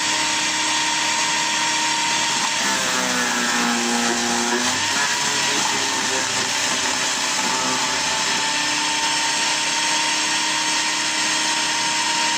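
Garden-waste shredder running steadily with a whining motor as branches are fed in. About three seconds in, the pitch drops for a couple of seconds and then recovers as the motor slows under the load of a branch.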